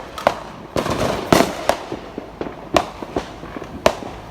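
Fireworks going off: a string of irregular sharp bangs, about seven clear ones, with smaller crackling pops between them.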